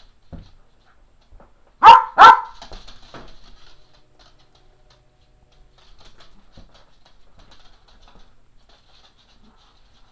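Cairn terrier giving two sharp play barks in quick succession, about two seconds in. Faint scuffling follows as the dogs tussle on the floor.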